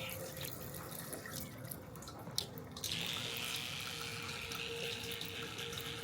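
Water running from a tap into a sink, a steady rush that grows louder and hissier about three seconds in, with one sharp click shortly before.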